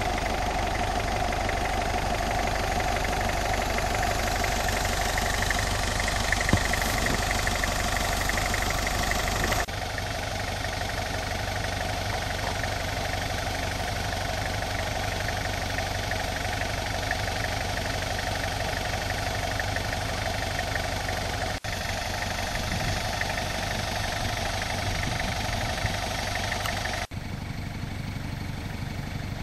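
Hyundai Galloper V6's engine running steadily at low revs in deep snow, with abrupt shifts in level at a few points.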